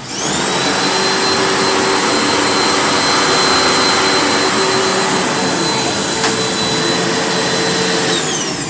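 Hoover WindTunnel upright vacuum cleaner switched on, its motor running with a steady high whine over the rush of air. Near the end it is switched off and the whine falls away as the motor winds down.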